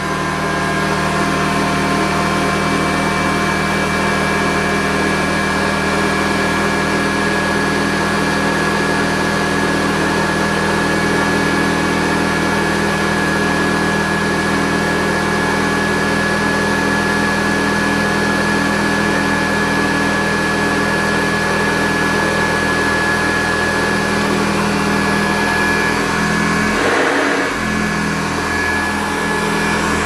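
A 1960 Hoover Convertible Model 31 upright vacuum cleaner running steadily on carpet: a constant motor hum with a high whine over it. The hum wavers briefly near the end.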